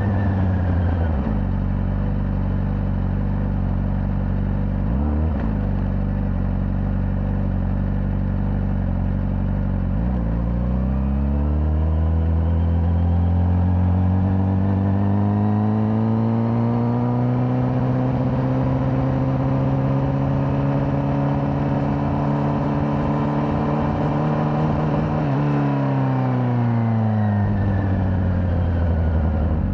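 Honda CBR600RR's inline-four engine on its stock exhaust, heard from the rider's seat: the revs drop off at the start and sit low with a quick blip about five seconds in. From about ten seconds they climb steadily and hold, then fall back again near the end before picking up once more.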